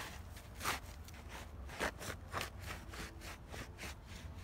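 Boots crunching through shallow snow at a walking pace, a step about every half second.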